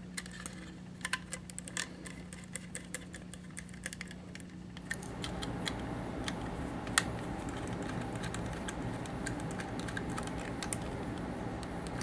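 Light irregular clicks and taps of a metal drive bracket and its small screws being handled and fitted onto a laptop SSD, over a steady low hum that grows louder about five seconds in.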